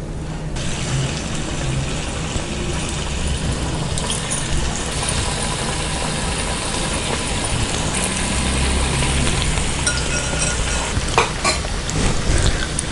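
Ragi-flour and onion pakoda dough deep-frying in hot oil, a steady bubbling sizzle that swells up less than a second in as fresh dough goes into the oil. The oil froths hard, as it does until the ragi is cooked through. A few sharp clicks near the end.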